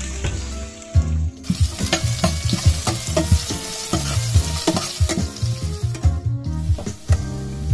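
Sliced red onions sizzling as they fry in hot oil in a stainless steel pot. From about a second in, they are stirred, and the utensil knocks and scrapes against the pot many times.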